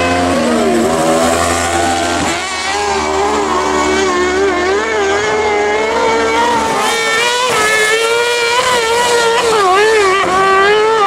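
High-revving engines of small single-seat dirt-track racing buggies lapping the circuit, the pitch rising and falling as the drivers work the throttle through the bends, with several engines heard at once.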